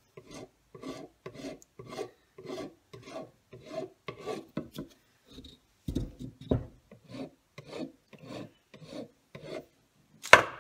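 A small round file rasping cured JB Weld epoxy off a cracked plastic steering wheel rim, in short even strokes about three a second. The strokes pause briefly in the middle, where there are two dull knocks. One sharp, loud knock comes just before the end.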